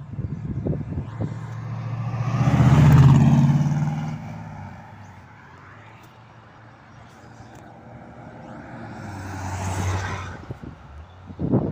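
A red American car's engine driving past with a low exhaust note, swelling to loudest about three seconds in and then fading. A second car passes more quietly about ten seconds in.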